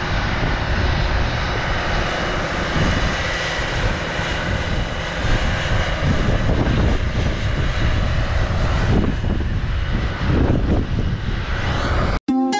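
Strong wind buffeting the microphone: a loud, rough, gusting rumble and hiss that cuts off abruptly near the end.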